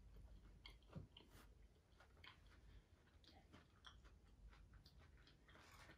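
Very faint chewing of food with the mouth closed, heard as soft, irregular mouth clicks and ticks.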